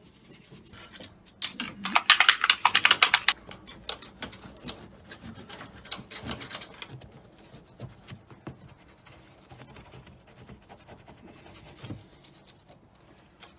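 Rapid scratching and rubbing strokes with many small clicks, loudest a couple of seconds in, then thinning to faint scattered clicks.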